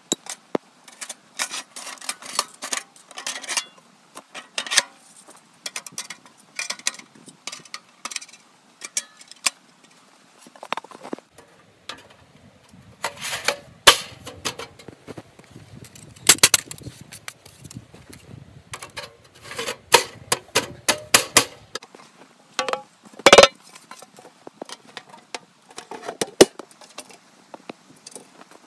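Metal clanks and rattles of a folding sheet-metal tent stove being handled: chimney pipe sections lifted out and set down, and the hinged side panels folded up and fitted together into the stove body. Irregular sharp clinks throughout, with the loudest clank about two-thirds of the way through.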